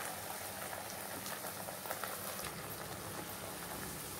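Onion-tomato masala with freshly added ground coconut paste sizzling and bubbling softly in a pan, with scattered faint crackles and pops.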